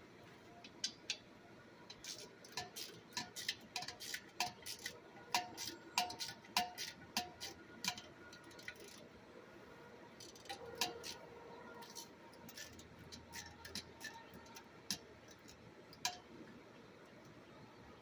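A 5/16 wrench working a bolt on an air compressor: a run of sharp metallic clicks, about two or three a second, then a pause and a few scattered clicks.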